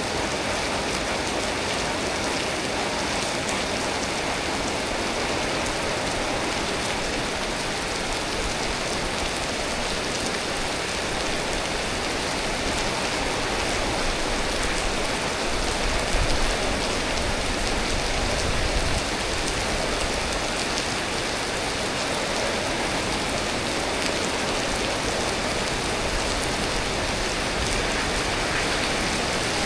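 Storm rain falling steadily, an even hiss, with a low rumble that swells briefly a little past the middle.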